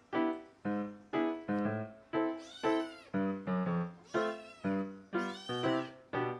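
A short-legged Munchkin kitten meowing hungrily for her food, a few high arching meows. Under it runs background music of evenly repeated notes, about two a second, each struck and fading.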